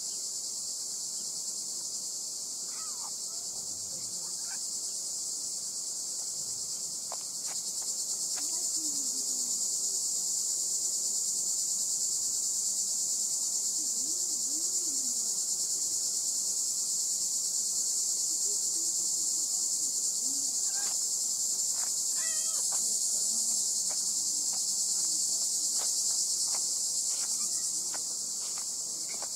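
A dense, steady chorus of insects shrilling high-pitched, with faint, brief low sounds now and then underneath.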